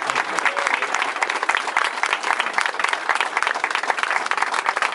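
A crowd applauding steadily, many hands clapping at once.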